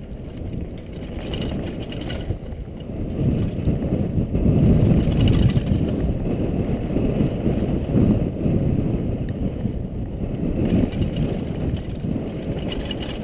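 Wind rushing over a helmet-mounted action camera's microphone during a fast downhill mountain-bike descent on loose gravel, with tyre rumble and occasional clatters of the bike over bumps. It swells loudest about four to six seconds in.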